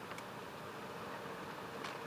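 Steady low background hiss with a couple of faint clicks as metal hose-reel fittings are handled.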